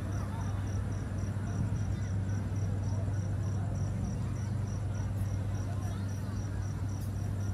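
A cricket chirping steadily, about four high chirps a second, over a crowd's background chatter and a low steady hum.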